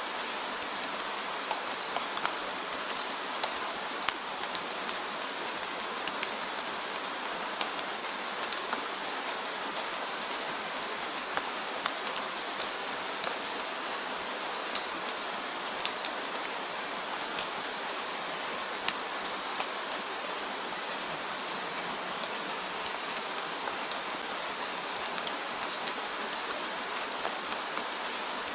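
Steady rain falling, an even hiss with many separate drops ticking on a surface throughout.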